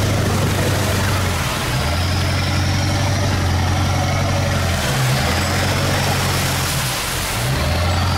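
Pickup truck engine running at low speed on a rough dirt road, heard from inside the cab, over a steady hiss of tyre and road noise. The engine note dips briefly three times, about two seconds in, at about five seconds and near seven seconds, as the throttle eases and picks up again.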